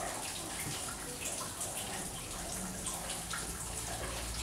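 Steady rain falling, a constant hiss with scattered drops pattering through it.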